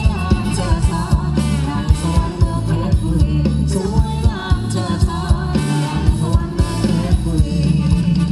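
Thai ramwong dance music from a band over a PA: a steady drum beat with a singer's melody over it.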